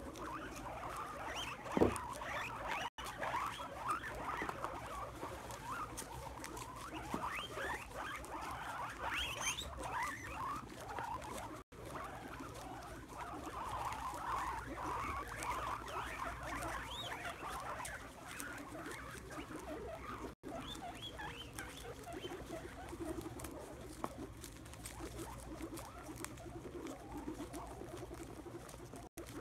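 A crowd of guinea pigs feeding on Brussels sprouts, with many short high squeaks over a steady rustle of chewing and shuffling in wood shavings. A single sharp click comes about two seconds in.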